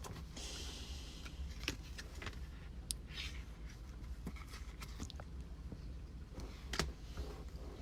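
Faint handling of trading cards: a soft rustle early on and a few scattered light clicks, over a low steady hum.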